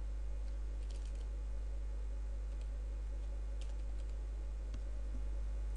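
Computer keyboard typing: a few soft, irregularly spaced keystrokes as a short word is entered. A steady low electrical hum runs beneath the keystrokes.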